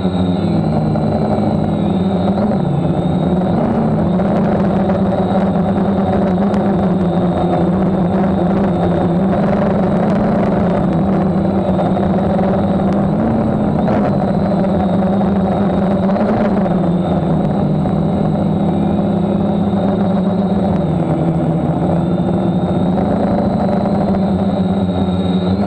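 DJI F550 hexacopter's six electric motors and propellers running with a loud, steady buzz, heard right on the airframe. The pitch drifts up and down as the flight controller varies motor speed in flight.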